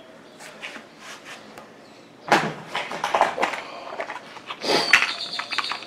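Metal clicks and knocks of hand tools at an alloy wheel rim as locking pliers are clamped onto the valve stem of a newly fitted TPMS sensor. Faint handling for about two seconds, then a run of clicks, with a sharper knock near the end that leaves a short high ring.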